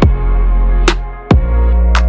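Electronic background music with a deep, held bass and heavy drum hits that drop in pitch, with a brief dip in the beat a little over a second in.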